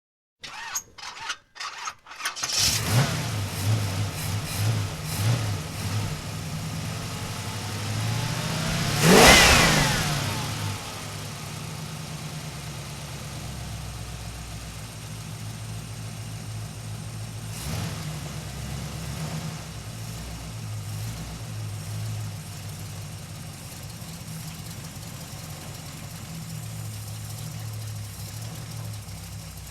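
Muscle car engine being cranked with a few starter clicks, catching and running unevenly at first. About nine seconds in it gives one sharp rev up and back down, the loudest moment, then settles into a steady idle.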